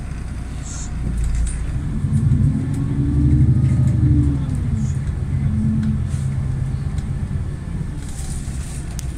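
Inside a moving VDL Citea city bus: steady low drivetrain rumble and road noise. About a second and a half in, the drive tone rises and then falls again as the bus pulls away and speeds up, loudest a few seconds in.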